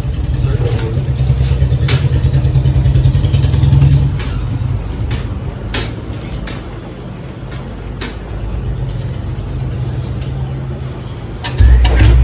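A motor vehicle engine running with a steady low rumble that swells over the first few seconds and then eases, with scattered sharp clicks and knocks; a heavier engine rumble starts near the end.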